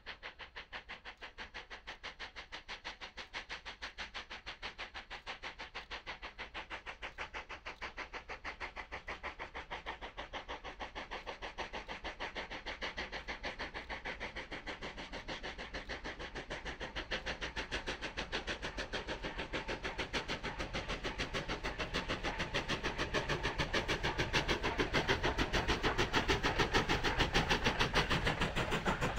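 Steam locomotive hauling a train, its exhaust chuffing in a rapid, even beat that grows steadily louder as it comes closer.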